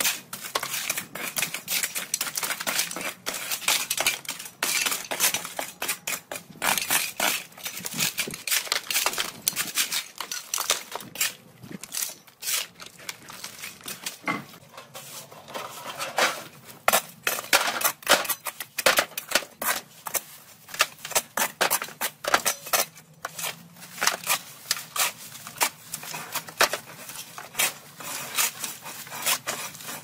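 Hand shovels scraping over dirt and rubble and dumping broken bricks and debris into a metal wheelbarrow: a steady run of irregular scrapes, clinks and clatters.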